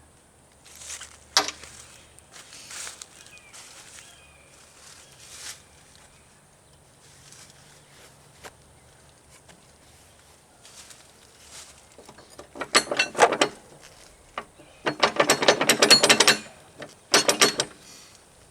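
Ratchet wrench with a socket clicking in quick runs, three bursts in the last third, after a single sharp metal clink about a second in.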